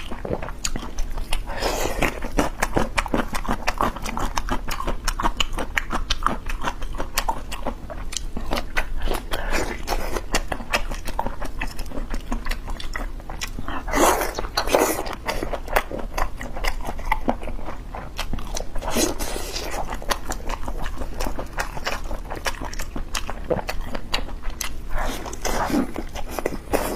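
A person biting and chewing spicy chicken heads close to a clip-on microphone: a dense run of wet mouth clicks and smacks, with louder moments about 2, 14, 19 and 25 seconds in.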